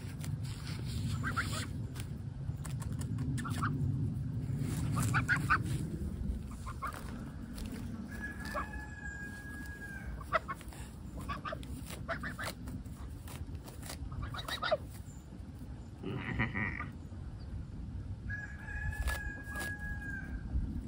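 Farm fowl calling: two long, even calls about eight and eighteen seconds in, and a shorter call just before the second, over scattered light clicks as a young goose pecks at the grass.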